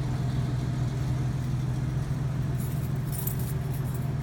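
Steady low engine hum, with a brief light metallic jingle about three seconds in.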